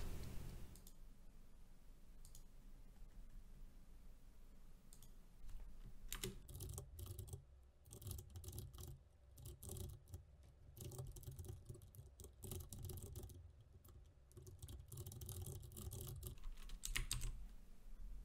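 Faint typing on a computer keyboard: several bursts of rapid key clicks with short pauses between them, starting about a third of the way in.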